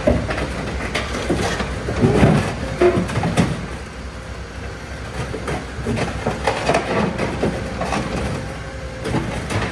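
Caterpillar tracked excavator driving down a low-loader trailer's steel ramp: the diesel engine running under a steady rumble while the steel tracks clank and knock over the deck and ramp, the clanks heaviest in the first few seconds.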